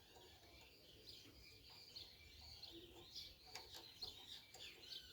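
Near silence, with faint bird chirps in the background and a few faint light clicks.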